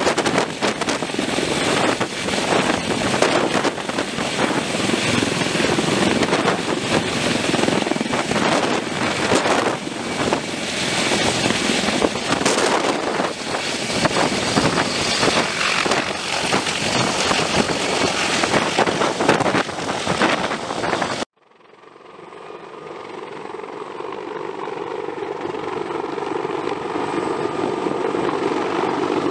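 Sikorsky CH-53E Super Stallion heavy-lift helicopter close overhead with an external sling load: loud, rough rotor and turbine noise. About three-quarters of the way through the sound cuts off abruptly and comes back as the same helicopter heard from far off, its rotor hum growing steadily louder.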